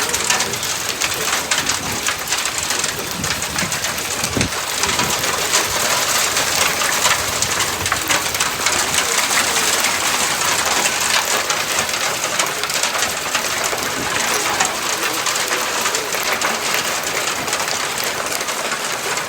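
Heavy rain falling steadily: a dense patter of drops hitting surfaces, with a brief low thud about four seconds in.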